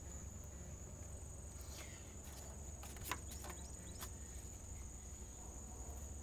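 A few light plastic clicks and knocks as the air intake tube and engine cover are handled, the sharpest about three seconds in, over a steady high insect trill.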